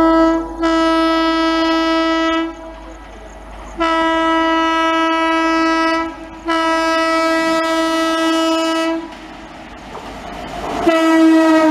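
Electric locomotive's horn (Indian Railways WAP-7) sounding repeated long blasts, each about two seconds, at one steady pitch with many overtones, as the train approaches. The end of one blast opens, three more follow, and a last one starts near the end and begins to drop in pitch as the locomotive passes; the train's running noise is heard quietly between blasts.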